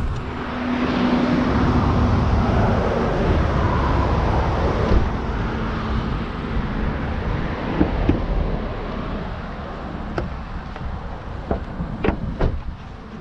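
Road traffic going by: a steady rush that swells over the first few seconds and eases off, with a few sharp clicks near the end.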